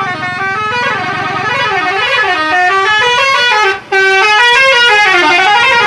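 A bus 'telolet' horn, a multi-tone air horn, playing a loud tune of notes that step up and down, with a brief break about four seconds in.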